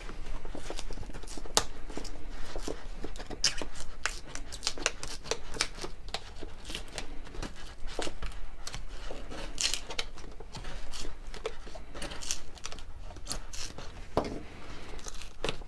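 Small knife blade cutting and prying through the glued flap of a cardboard mailing box: irregular scraping, tearing and clicking of cardboard, with the box knocking and rubbing as it is held and turned.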